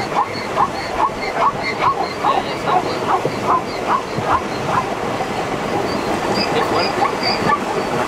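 Zebras giving their repeated barking calls, short high yelps about two or three a second, over a steady rushing background; the calling stops about halfway through.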